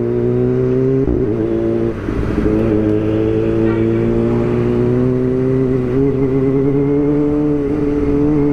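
Motorcycle engine running under way, a steady engine note that shifts in pitch a few times as the throttle changes.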